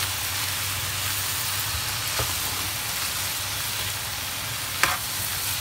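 Bean sprouts, carrot and minced pork sizzling in a hot pan as they are stir-fried, a steady hiss. The spatula clicks against the pan faintly about two seconds in and sharply near the end.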